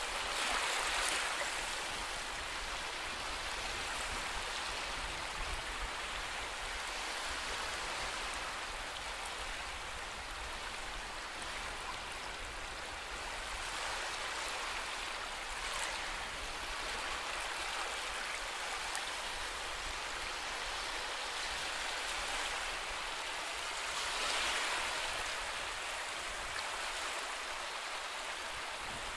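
Steady rushing water, a continuous even hiss that swells gently a few times.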